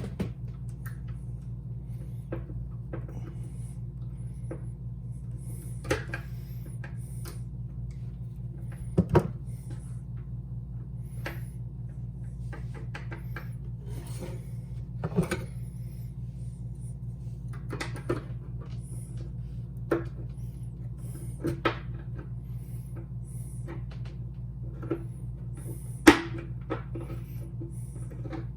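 Scattered clicks and knocks of a door handle's lock parts being handled and worked, a few seconds apart, the sharpest near the end, over a steady low hum.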